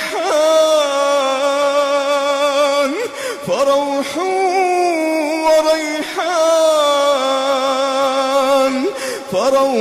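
A solo male voice chanting Quran recitation (tajweed), drawing out long, ornamented notes with a wavering pitch. It falls into three long phrases with short breaks between them, about three seconds apart.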